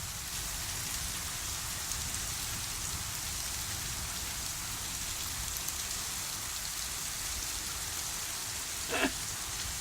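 Steady rain falling in a thunderstorm, a continuous even hiss. About nine seconds in there is one short, brief pitched sound.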